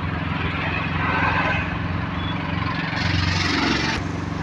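Goods-carrier truck's engine running steadily while driving, heard from inside the cab with road noise. About three seconds in, a louder hiss rises and cuts off suddenly a second later.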